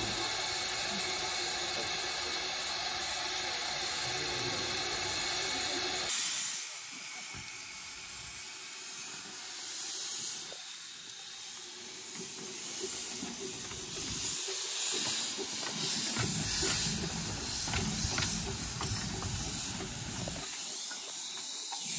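Steam hissing steadily from the 15-inch-gauge Pacific steam locomotive Doctor Syn as it stands in the station. About six seconds in the sound changes to uneven steam and exhaust noise as the engine moves off, loudest in the last few seconds.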